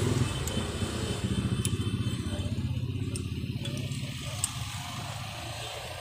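An engine running with a fast, even pulse, fading gradually. A few light metal clinks come from spanners on a tappet adjuster.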